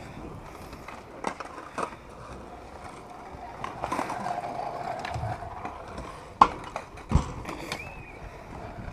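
Small hard wheels rolling over skatepark concrete, humming steadily for a couple of seconds in the middle, with sharp clacks of a deck hitting the ground a few times. The loudest clack comes about six and a half seconds in.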